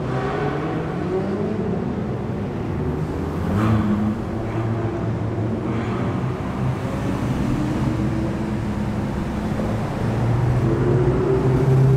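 Supercar engines, a McLaren's and several Ferraris', running as the cars pull away one after another at low speed, the engine note rising and falling with light throttle. A louder engine pull rises near the end.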